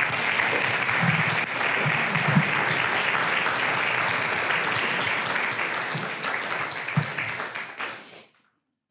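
Congregation applauding, a steady clapping that tapers away about eight seconds in.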